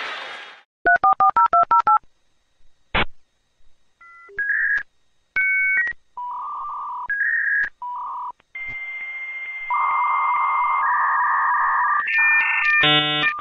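Dial-up modem connecting: a quick string of touch-tone dialing beeps about a second in, a click, then a series of steady answer and handshake tones that build into dense overlapping beeps near the end.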